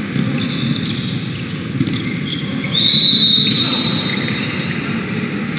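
Handball game sound with arena crowd noise and the ball bouncing on the court. A referee's whistle blows one steady blast of about a second near the middle, the loudest sound here.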